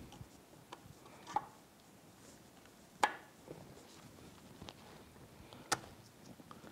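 A few sharp clicks and light taps of metal on metal as the input shaft seal housing is worked down over the input shaft and pressed into the gear case by gloved hands. The loudest click comes about three seconds in.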